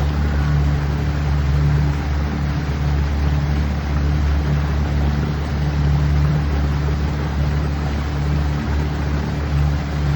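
A motorboat's engine running at a steady speed while underway: an even low hum over a constant wash of noise.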